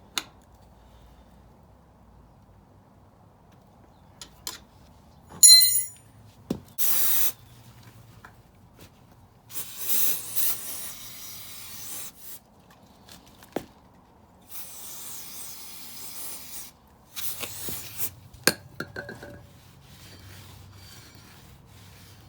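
Metal tools and parts clinking during motorcycle rear-brake reassembly, with a bright ringing ping of metal about five seconds in and a few sharp clicks. Several hissing bursts of a second or two come and go through the rest.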